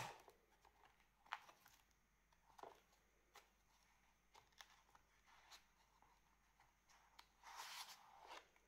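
Faint handling of a cardboard DigiBook by gloved hands: a sharp click at the start, then a few soft taps and page rustles. Near the end comes a longer sliding rustle as a disc is drawn from its cardboard slot.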